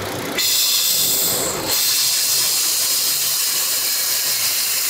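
Compressed air hissing steadily into a pressurised tank that feeds fresh automatic transmission fluid into the gearbox. The hiss starts abruptly about half a second in and turns brighter about a second later.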